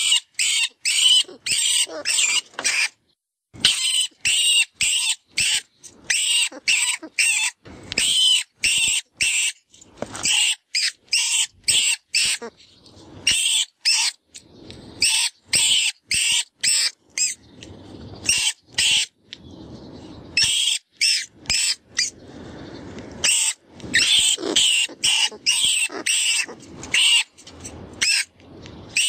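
Rat distress squeaks from the FoxPro 'Vermin Pest Control' predator call: rapid runs of short, shrill squeals in uneven bursts, with a lower, rougher stretch of squealing about two-thirds of the way through. It is a prey-in-distress call meant to draw in foxes.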